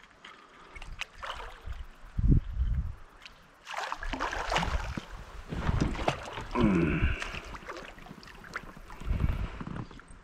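A largemouth bass being fought and reeled in from a plastic fishing kayak: clicks and knocks of the baitcasting reel and rod against the hull, with water sloshing. There is a low thump about two seconds in.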